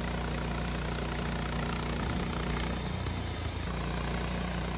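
Woodmizer LT15 Start sawmill running steadily with a low, even hum. Its pitch wavers briefly between about two and three and a half seconds in.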